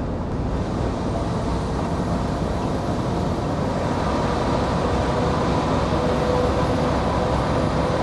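Scania truck driving into and through a road tunnel: steady engine and tyre noise heard from the cab, slowly growing a little louder.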